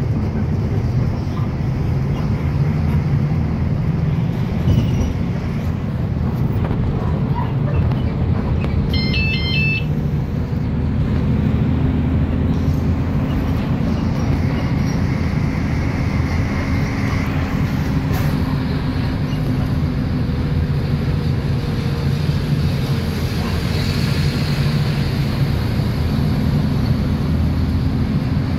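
City bus engine and road noise heard from inside the cabin while cruising on a highway, a steady low drone. A short run of high beeps sounds about nine seconds in.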